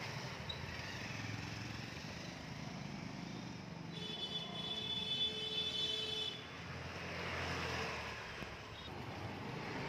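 Hero Honda Splendor single-cylinder engine idling steadily through an aftermarket slip-on exhaust. About four seconds in, a high steady tone sounds over it for about two and a half seconds.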